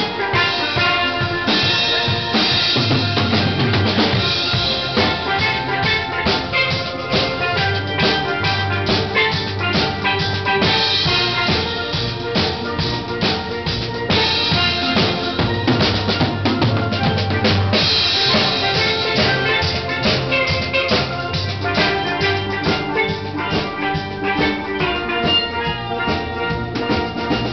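Steel drum band playing a tune: ringing steel pan notes struck with mallets over a drum kit keeping the beat with bass drum, snare and cymbals. Cymbal crashes come back every few seconds.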